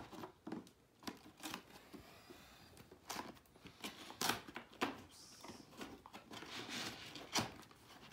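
Unboxing handling noise: a cardboard box and plastic packaging rustling and crinkling as a boxed DVR recorder is taken out, with scattered light knocks and clicks.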